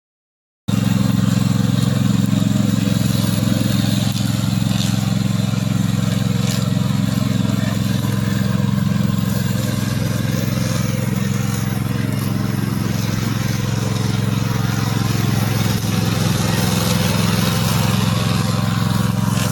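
Remote-control slope mower's engine running steadily at working speed. It cuts in abruptly less than a second in.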